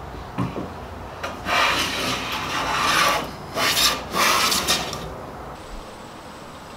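Long hand plane shaving the edge of an oak board: one long rasping stroke, then two shorter strokes close together, preceded by a couple of light knocks. The plane is straightening the edge and removing rough saw marks.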